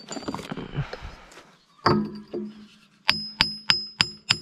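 Hammer driving a steel vertical retaining pin into an excavator bucket tooth, metal on metal. After some clinking of parts being handled, one ringing blow lands about two seconds in, then a quick run of ringing blows at about three a second near the end.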